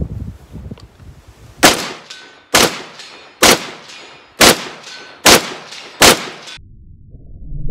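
Six rifle shots about a second apart from a 7-inch-barrelled 5.56 AR-15 short-barrelled rifle with a muzzle brake, each a sharp loud crack with a brief ring-off.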